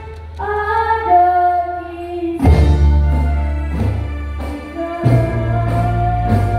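Children singing a song with a rebana frame-drum ensemble. A held vocal line opens, and about two and a half seconds in the drums come in with a deep bass and regular strokes about twice a second under the singing.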